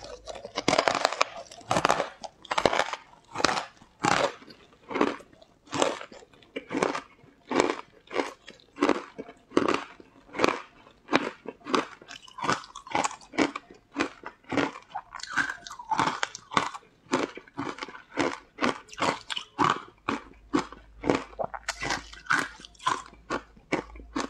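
Close-miked chewing of crumbly green food chunks: steady, rhythmic crunching at about two to three chews a second.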